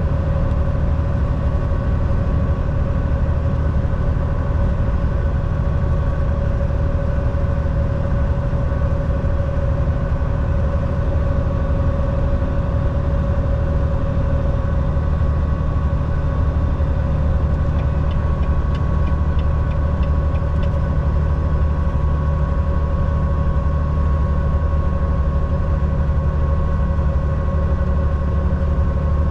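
Semi truck's diesel engine and road noise at a steady drive, holding an even hum with no change in pitch. A few faint ticks come in about two thirds of the way through.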